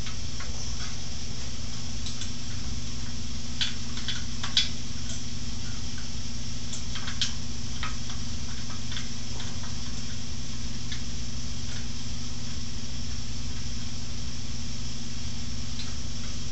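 Light metal clicks and taps as a bolt, washer and tailstock parts of a lathe are handled and fitted by hand, scattered and most frequent in the first half. Under them runs a steady low hum with a hiss.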